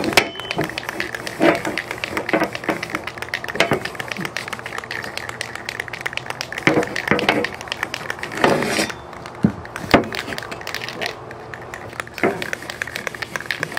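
Cloth rag rubbing over a sanded steel computer-case drive cage on newspaper, a dense crackly rustling and scrubbing, with several sharp knocks and rattles as the metal parts are handled and set down on the table.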